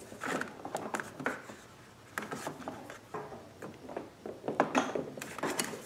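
A rubber fuel hose being fed through a generator's engine compartment by hand: irregular rubbing and scraping with scattered light clicks and knocks as the hose and hands brush against the plastic housing and engine parts.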